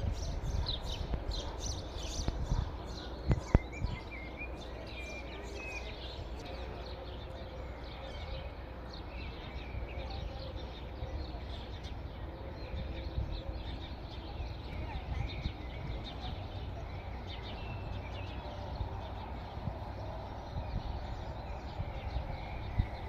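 Small birds chirping and calling over and over, short quick chirps mixed with curling whistled calls, above a steady low rumble. A couple of sharp knocks about three and a half seconds in.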